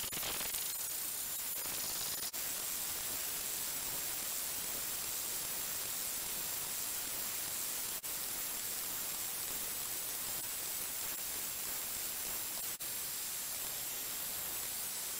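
Steady static-like hiss with thin, faint high-pitched whines over it, dipping out for an instant three times.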